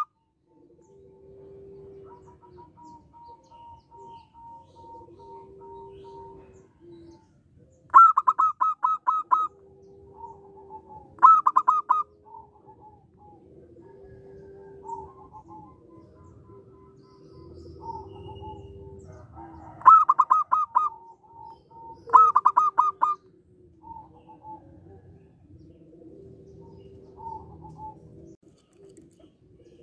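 Zebra dove (perkutut) singing: four loud bursts of quick staccato notes, the first about eight seconds in and the last near two-thirds of the way through. Fainter, lower drawn-out coos repeat in between.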